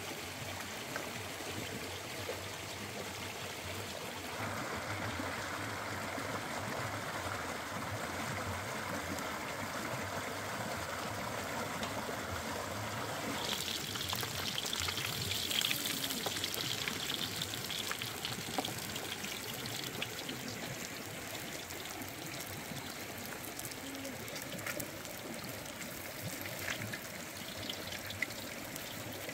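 Steady rushing of a flowing stream. About halfway through, a brighter hiss joins it for a few seconds.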